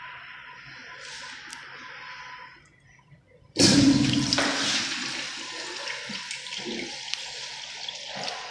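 Manual flush valve on a wall-hung urinal flushing: a sudden loud rush of water about three and a half seconds in that eases into a steadier, quieter rush. Before it, a steady hiss dies away.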